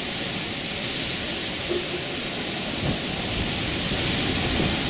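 Steady hiss of heavy rain in gusty wind. Low rumbling buffets of wind come and go, more often in the second half.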